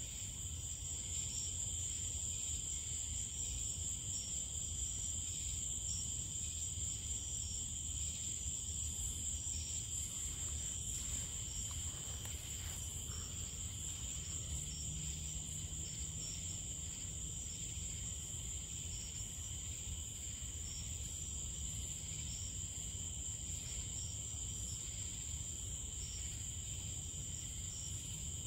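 A night chorus of crickets and other insects, a continuous high trill with a lower steady band beneath it and a faint regular chirping among them, over a low background rumble.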